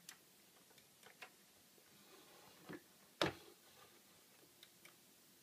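A handful of faint, irregular clicks from Apple IIc keyboard keys and the mouse button being pressed, the loudest a little past three seconds in.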